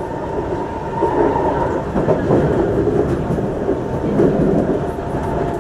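Singapore MRT train running, heard from inside the carriage: a steady loud rumble of wheels on rail with some clickety-clack, and a thin whine at the start and another near the end.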